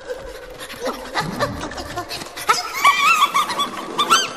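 Small cartoon rodents squeaking and giggling in a high, chirpy voice under laughing gas: quick rising-and-falling squeaks that start about halfway through and come thick and fast to the end.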